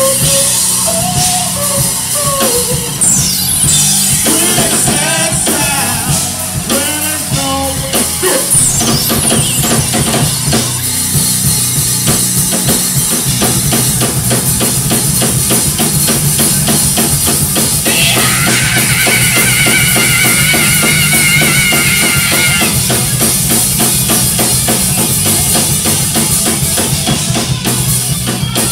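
A rock band playing live, loud and steady, with a drum kit keeping a driving beat. There is singing over the first several seconds, then an instrumental stretch with a held high note in the middle.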